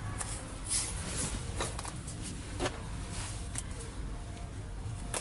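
Short crackles and ticks at irregular intervals from hands working electrical tape around fuel pump harness wires, over a steady low rumble.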